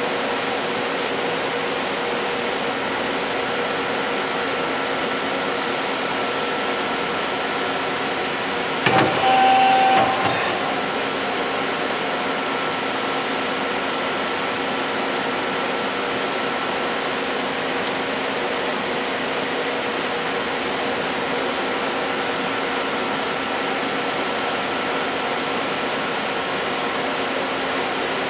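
1994 Mazak SQT-10M CNC turning center running under power: a steady hum with several held tones. About nine seconds in comes a louder clunk and whir of about a second and a half, ending in a short hiss, as the 12-station tool turret moves to a new position.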